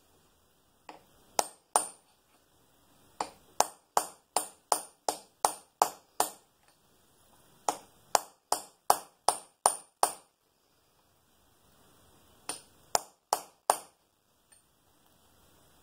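Light ball peen hammer tapping a steel punch: sharp metallic pings in quick runs of about two and a half strikes a second, with short pauses between runs. The punch is driving the sheared worm-gear shaft out of a Bridgeport mill's J-head housing.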